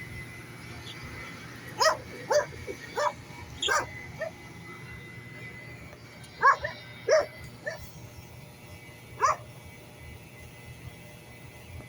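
A dog barking: about nine short barks, in a quick run of five, then three, then a single bark.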